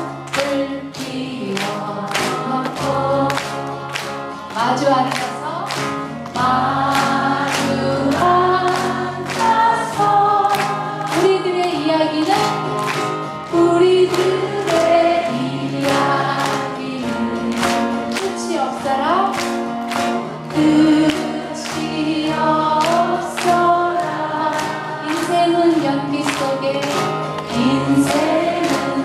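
A live folk song: singing voices, more than one at times, over instrumental accompaniment with a steady beat.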